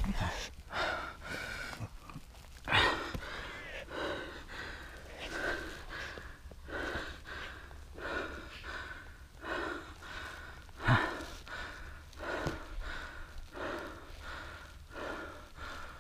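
A person breathing hard and rhythmically close to the microphone, about one and a half breaths a second, with a few louder gasps.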